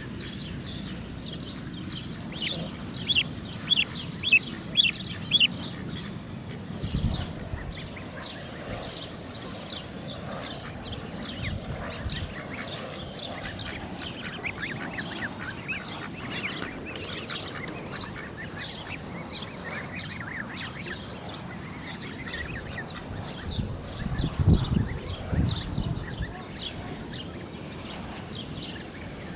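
A flock of young domestic geese and ducks peeping, many short high calls overlapping, with a loud run of peeps about three to five seconds in and a few lower, louder sounds near the end.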